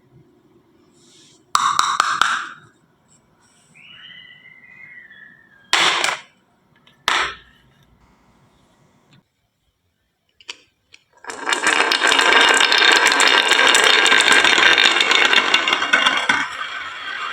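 Marbles rolling on a wooden marble run, with a few short separate knocks and clacks in the first half. From about eleven seconds in, a dense, continuous clatter of many marbles rattling down the wooden track.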